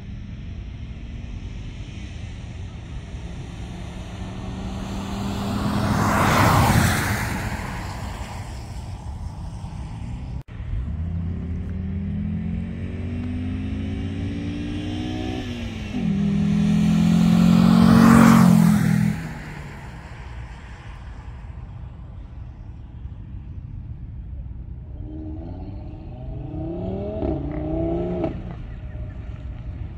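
Cars at full throttle on a drag run passing close by at the finish line: one goes past about six seconds in, another builds up and passes loudest at about eighteen seconds. Near the end a third engine is heard further off, rising in pitch through several gear changes.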